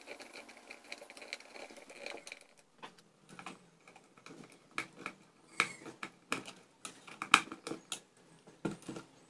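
Irregular light clicks and taps of hands handling electrical wire and a screwdriver on a wooden wiring board with plastic switches and sockets. The knocks grow louder in the second half, the sharpest about seven seconds in.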